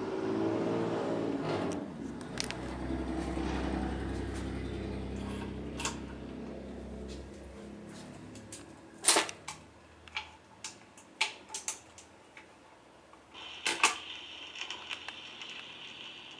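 A low hum from the 1961 Winco 1500 valve record player dies away over the first several seconds. Sharp clicks and knocks of the player's mechanism and tonearm follow. About thirteen seconds in, a steady hiss of record surface noise starts as the stylus runs in the lead-in groove.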